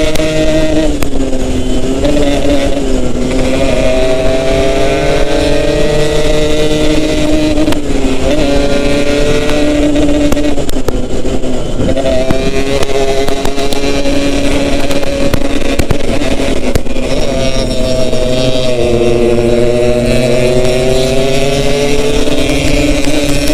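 Yamaha RX-King two-stroke single-cylinder motorcycle engine running under way, its pitch falling and rising several times as the throttle is eased and opened again.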